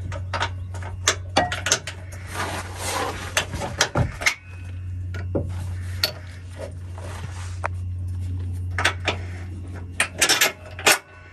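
Metal tools and fasteners clinking and clanking as a suspension control arm and its bolts are handled and fitted, with a steady low hum underneath.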